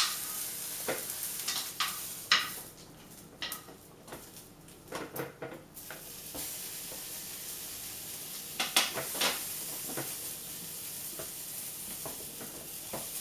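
Scattered light taps and knocks of a plastic sippy cup handled against a plastic high-chair tray, over a steady background hiss; the taps cluster in the first few seconds and again about nine seconds in.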